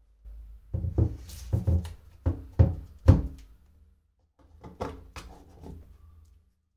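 A series of dull knocks and thuds: about five strong ones in the first three seconds, then a softer cluster a second or so later.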